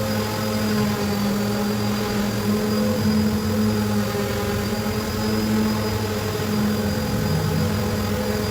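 Electric sander running steadily with a constant motor hum and a thin high whine, over the hiss of sanding the wood.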